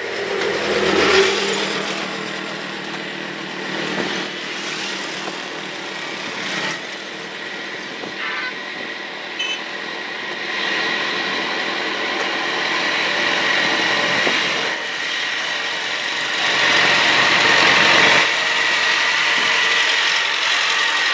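Road traffic with a farm tractor pulling a heavily loaded trolley approaching slowly, its engine and rattle growing loudest near the end as it draws close. Motorcycles pass along the road.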